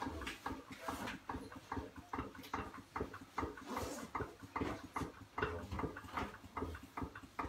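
Hair-cutting scissors snipping in a quick, uneven run of sharp clicks, about three or four a second.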